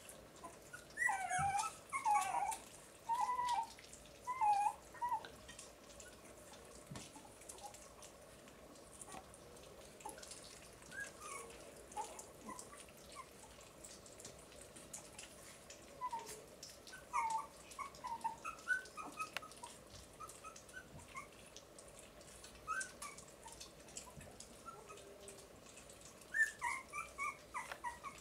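A litter of young puppies whimpering in short, high, bending cries while they feed together from a dish, with soft clicks of eating underneath. The cries come in clusters near the start, about two-thirds through and again near the end.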